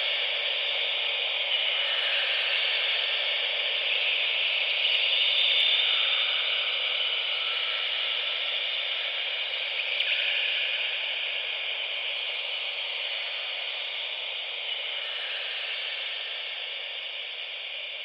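A steady, static-like hiss of noise forming the song's instrumental outro, with no voice. It swells a little about five seconds in, then slowly fades.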